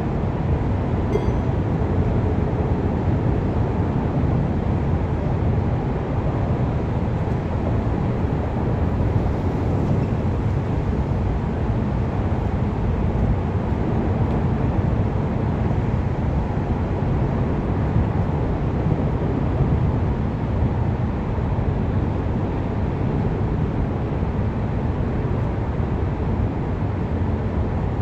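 Steady low rumble of city traffic with no single sound standing out.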